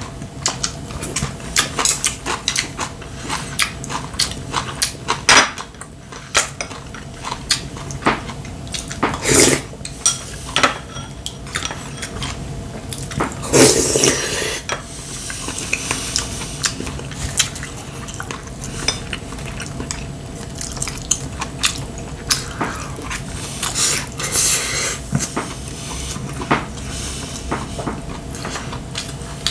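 Chopsticks and a spoon clicking and scraping against ceramic bowls and plates during a meal, with a longer slurp of broth from the spoon about halfway through.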